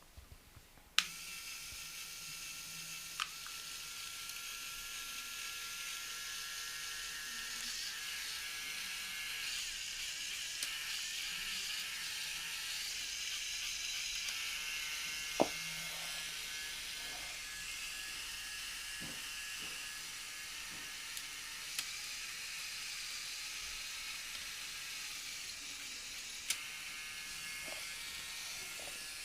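A small electric motor switched on with a click about a second in, then whirring steadily with a high-pitched whine, with a few sharp clicks along the way.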